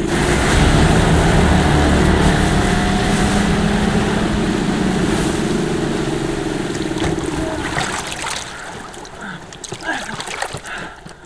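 Small outboard motor driving an inflatable boat across water, running steadily with water rushing and splashing along the hull. It fades after about eight seconds, and a few splashes and knocks follow near the end.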